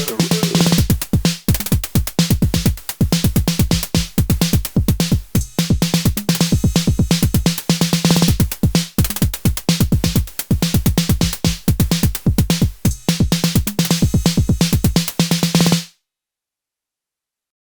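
Acid-techno pattern at 128 bpm from a Moog DFAM, Behringer CAT and Elektron Syntakt: fast, even drum-machine hits over a repeating low synth note. It cuts off suddenly near the end into silence.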